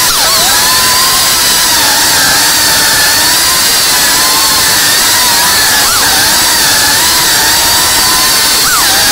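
FPV quadcopter's brushless motors and propellers whining loudly in flight. The pitch swoops briefly with throttle changes about six seconds in and again near the end.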